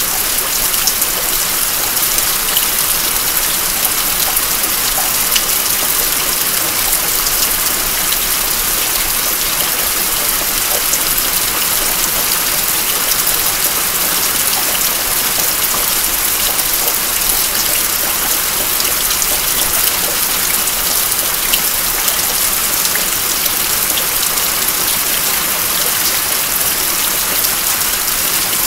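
Steady rain falling: an even hiss with scattered small drop ticks, including water falling off the roof edge.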